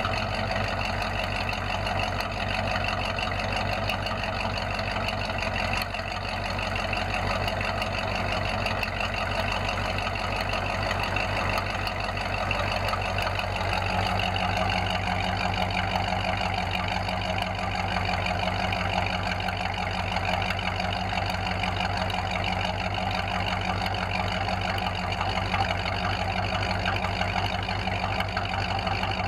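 Ford F-5 COE truck's V8 idling, heard at its twin tailpipes as a steady run of exhaust pulses, soon after a start following a long lay-up. About halfway through, the idle note shifts and grows fuller.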